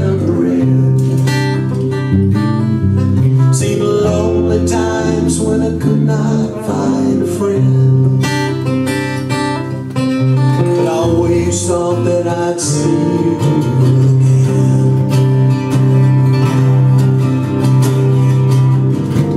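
Acoustic guitars fingerpicked together in an instrumental passage, with low bass notes held under picked melody notes.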